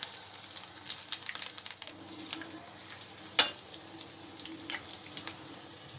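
Breadcrumb-coated potato patties shallow-frying in hot oil in a pan: a steady sizzle with scattered crackles. A spatula turns them, with one sharp knock against the pan about three and a half seconds in.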